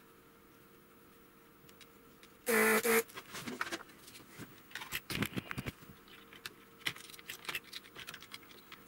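Clicking and light clattering of hands handling a TV power supply board and small metal parts, with many short ticks and rattles. About two and a half seconds in, a single loud steady pitched tone sounds for about half a second.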